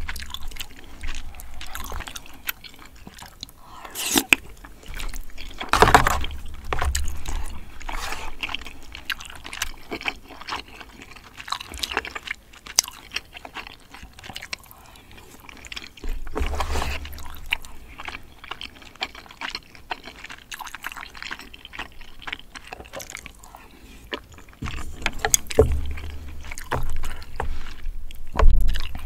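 Close-miked eating sounds: wet chewing and slurping of creamy spaghetti and braised chicken, with sharp clicks of a spoon and chopsticks scattered throughout and louder bursts of slurping in a few spots.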